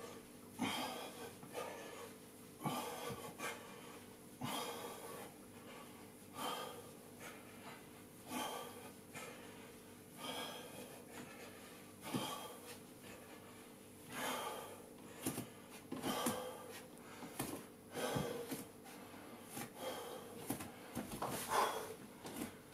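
A man breathing hard from workout exertion: noisy in-and-out breaths in a steady rhythm, about one every second.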